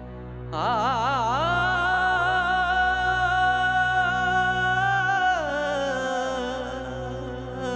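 Sad background music: a long, wavering melodic line that settles on a held note over a steady low drone, then steps down to a lower held note about five seconds in.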